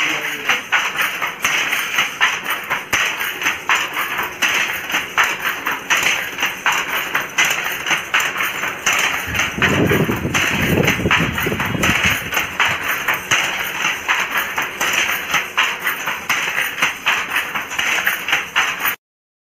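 Wooden handloom being worked by hand and foot, clacking in a steady run of knocks a few times a second as the shuttle and beater go back and forth. Deeper thuds come in for a couple of seconds near the middle, and the sound cuts off suddenly near the end.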